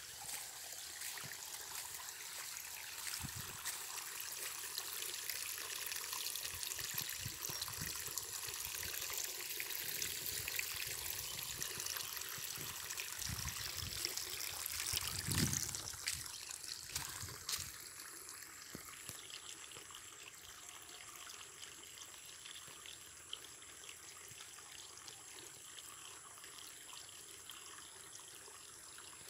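Water trickling and running over a muddy bank into brown floodwater, with a brief thump about halfway through. The water sound drops to a fainter level after about two-thirds of the way.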